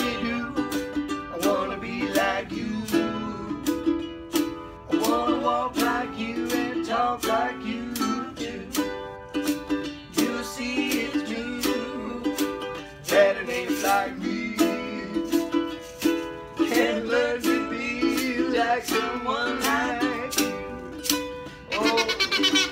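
Ukulele strummed in a steady rhythm while a man and a woman sing wordlessly along with it, scat-style. Near the end a kazoo comes in with a buzzy tone.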